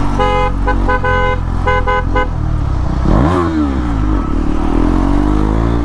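A vehicle horn honks in a quick series of short beeps over a motorcycle engine running in traffic. About three seconds in, the engine revs up sharply and drops back, then climbs again near the end.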